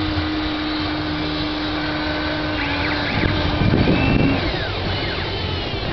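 Small electric motors of a Hobby Engine radio-controlled toy excavator whining steadily as its boom and bucket move. A louder, rougher scraping stretch comes about three and a half seconds in, lasting about a second.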